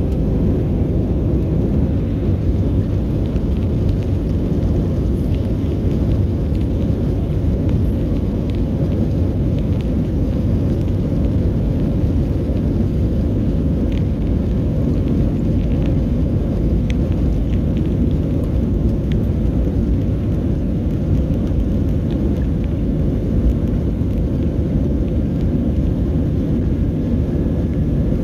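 Steady low roar and rumble of a Southwest Airlines Boeing 737 heard from inside the cabin during the takeoff roll, with a few light cabin rattles.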